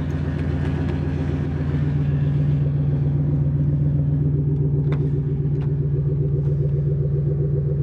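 Pontiac Grand Prix GXP's 5.3-litre V8 idling steadily while still cold from the winter weather. A couple of light clicks come about five seconds in.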